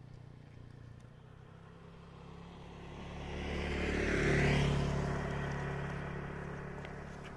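A motor vehicle passing on the road: its engine hum and noise grow louder to a peak a little past the middle, then fade away.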